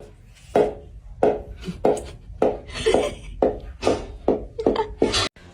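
A series of about ten sharp knocks, roughly half a second apart and coming slightly faster toward the end, each with a short ringing tail.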